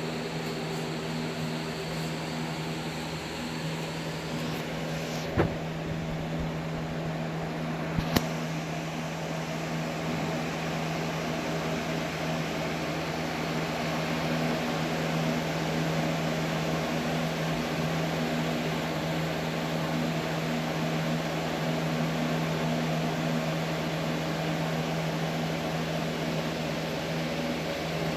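Aquarium pump humming steadily, with an even hiss of moving water and bubbles. Two sharp clicks about five and eight seconds in.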